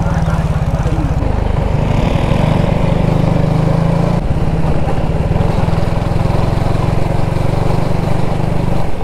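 Motorcycle engine running steadily while riding, with a brief change in its note about four seconds in.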